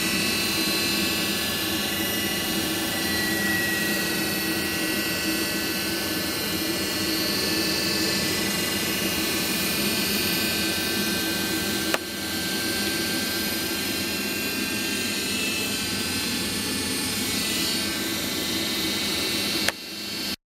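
Rinnai 167 RMF gas boiler humming steadily, a fan-like whoosh with a few faint steady tones: the boiler hums but does not switch on, showing error 15. Two sharp clicks, about twelve seconds in and just before the end.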